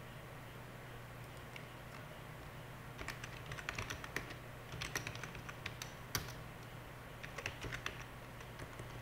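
Typing on a computer keyboard: quick clusters of keystroke clicks starting about three seconds in and stopping near the end, over a faint steady low hum.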